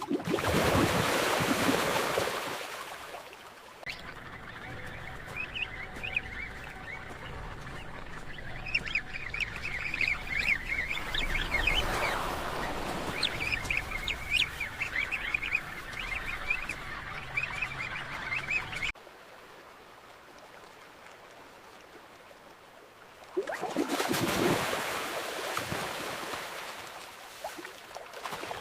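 A loud rush of water, then a penguin colony calling over ocean noise: many short overlapping calls that cut off suddenly about two-thirds of the way through. A few seconds later comes another rush of water.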